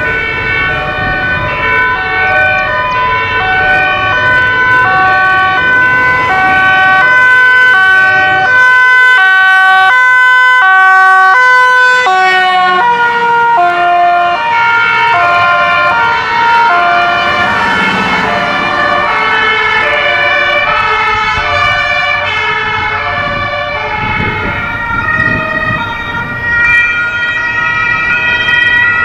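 German two-tone emergency sirens on a fire engine and ambulances, several at once, alternating between a high and a low note. Their pitch shifts downward about halfway through as a vehicle passes, with vehicle engine and road noise beneath.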